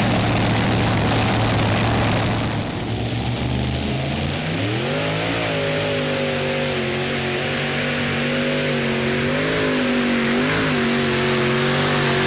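Modified pulling tractor's engine running at full throttle during a pull, over a constant roar. The engine note dips a few seconds in, climbs back up about five seconds in, and then holds with slight wavering.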